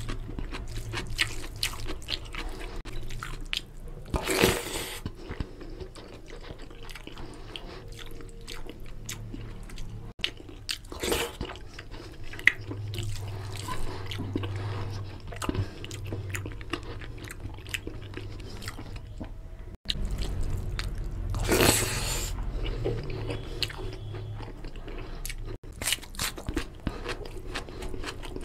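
Close-up chewing of rice and mutton fat curry, with wet mouth clicks and lip smacks and the squelch of fingers working the rice. Three times a louder short rush of noise breaks through.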